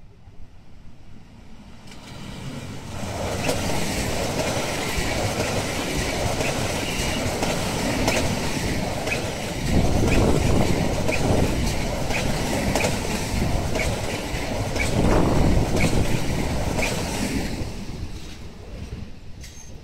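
A three-unit set of Newag Impuls 31WE electric multiple units passes at speed without stopping: a rush of wheels on rail that builds over the first few seconds, carries a steady run of regular wheel clicks, and fades away near the end.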